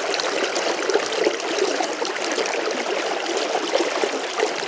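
Steady running water, a stream flowing.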